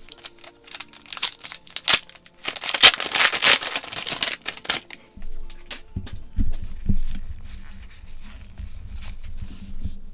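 A trading-card pack wrapper torn open and crinkled for about two seconds, starting a couple of seconds in, then quieter handling of the cards, over faint background music.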